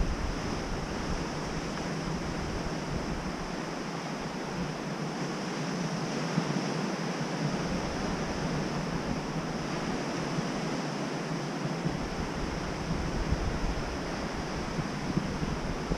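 Ocean surf breaking on a rocky reef and sandy beach: a steady wash of waves, with wind buffeting the microphone in low gusts at the start and again about eight seconds in.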